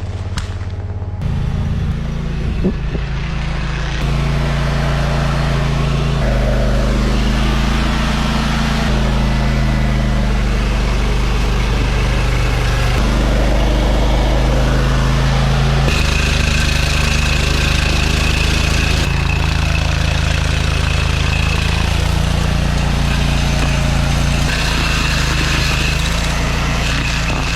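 Heavy engine-driven machinery running steadily, its low drone changing in pitch suddenly several times. A high steady whine joins about two-thirds of the way through and again near the end.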